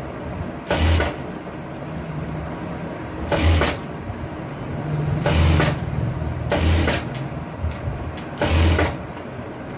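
Sewing machine running in five short bursts with pauses between, stitching a blouse sleeve onto the armhole.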